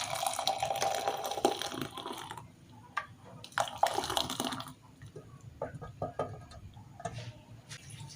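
Hot herbal liquid being strained into a container, pouring in a steady trickle for about two and a half seconds, then a few splashes and scattered drips as the last of it runs through.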